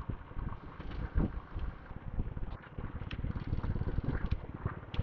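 Motorcycle running while being ridden: steady engine rumble and road noise picked up by a helmet-mounted external mic, with a few faint sharp clicks.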